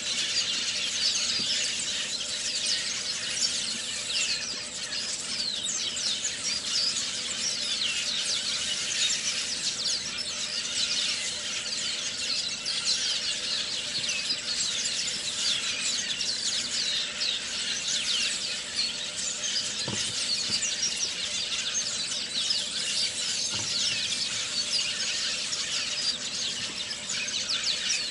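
Dense, unbroken chorus of many high-pitched chirps and squeals from wildlife in the lakeside trees.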